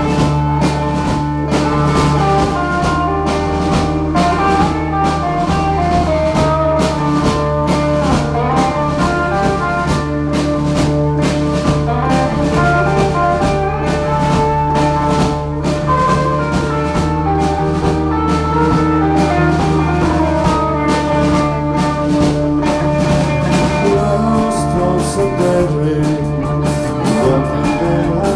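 Live rock band playing, with drums keeping a steady beat under held, shifting instrument notes.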